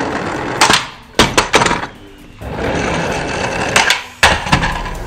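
Hot Wheels Marvel Flip Fighters toy cars rolling across a hard surface with a steady rushing noise, broken by a few sharp clacks as a car flips over and lands: a bunch of three or four knocks about a second in, and another near the end.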